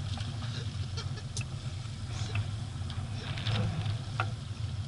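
A sailing yacht's inboard engine running steadily as the boat motors under bare poles, a low even drone with scattered light ticks over it.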